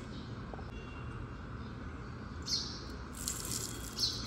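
Cumin seeds poured into a stainless steel mixer-grinder jar, pattering and rattling against the steel in short bursts in the second half. A steady, faint low hum runs underneath.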